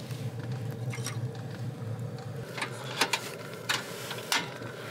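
Chinese diesel heater humming steadily inside the camper, with about five sharp clicks and knocks of things being handled in the second half.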